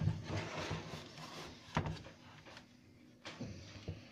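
Handling noise from an NEC AccuSync LCD52VM monitor's casing being worked apart by hand: rubbing and scraping for about the first second, a sharp click, then a few light clicks and knocks.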